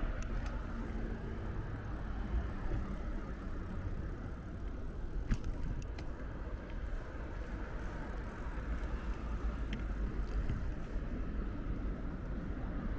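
Steady street ambience dominated by the rumble of road traffic, with a couple of short clicks about five and six seconds in.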